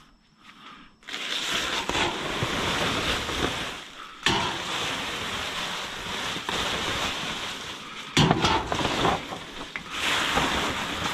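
Rummaging through rubbish in a bin: continuous rustling and crackling that starts abruptly about a second in, with brief pauses around four and eight seconds in and a few sharp clicks.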